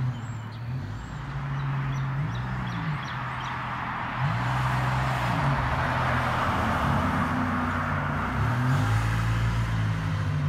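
1987 Buick Grand National's turbocharged 3.8-litre V6 running through a new 3-inch Pypes exhaust with Dynomax Super Turbo mufflers as the car drives past, with a low exhaust rumble. Its engine note rises and falls several times, and the rush of the passing car is loudest around the middle.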